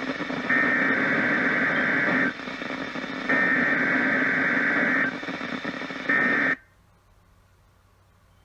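EAS SAME header data on NOAA Weather Radio: three bursts of fast two-tone digital screech over radio hiss, the third cut off after half a second. These data bursts open the Required Weekly Test and trigger alert receivers.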